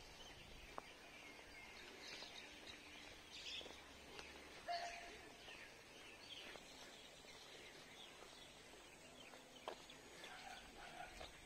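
Faint, scattered birds chirping over quiet open-air ambience, with a short steady tone about five seconds in.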